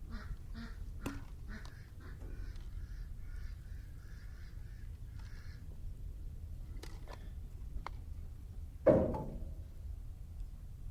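A duck quacking in a rapid run of calls through the first half, then a few light clicks and one sharp clack about nine seconds in.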